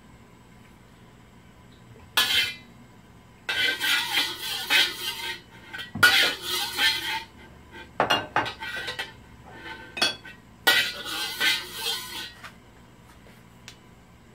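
Metal spatula scraping and clinking against a black wok, spreading cooking oil around the pan before stir-frying. It comes in several short bouts with brief pauses, starting about two seconds in and stopping shortly before the end.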